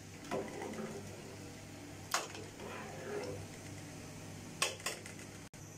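Metal spoon stirring wet rice in a large aluminium cooking pot, with soft scraping and sharp clinks of the spoon against the pot: once about two seconds in and twice near the end.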